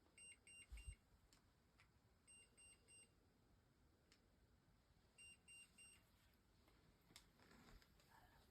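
An electronic device beeping: three sets of three short, high beeps, the sets a couple of seconds apart, over faint room hiss. A soft low thump comes about a second in.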